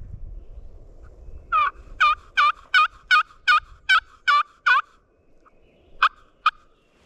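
A turkey call run as a series of about nine loud, evenly spaced hen yelps, roughly three a second, followed by two short single notes. It is a hunter's calling to strike up a gobbler.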